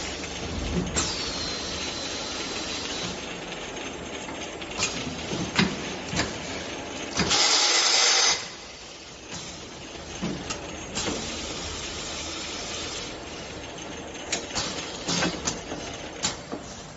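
Linear bottle washing machine running: steady mechanical noise with irregular clanks and knocks. A thin whistle falls and then holds for a couple of seconds near the start, and a loud hiss bursts out about seven seconds in for about a second.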